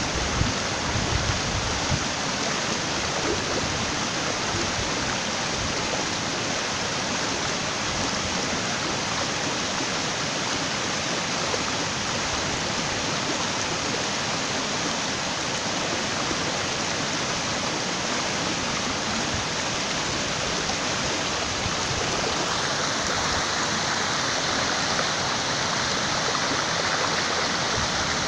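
Water pouring over the crest and down the concrete spillway face of an overflowing dam, making a steady rushing sound.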